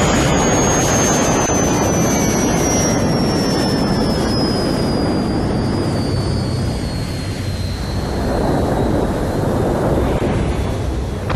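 Land-speed record car running flat out: a loud, steady engine roar with a thin high whine that slowly falls in pitch as the car speeds away.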